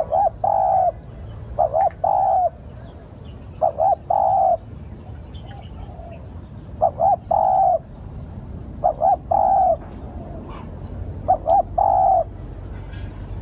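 Spotted dove cooing: six phrases in a row, each two short coos followed by a longer one, about one phrase every two seconds.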